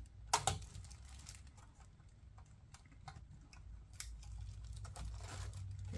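Handling noise from a car radio head unit and its sheet-metal mounting sleeve being worked by hand: a few light clicks and taps, with some soft rustling, over a faint steady low hum.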